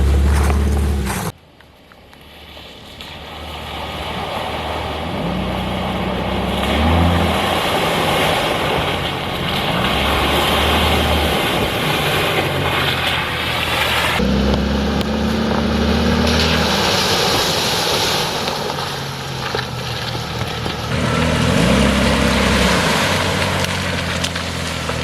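Jeep Cherokee XJ's engine running and revving as it crawls along an off-road trail, its pitch rising and falling a few times over a rushing noise. The sound drops away sharply about a second in and builds back, then changes abruptly midway.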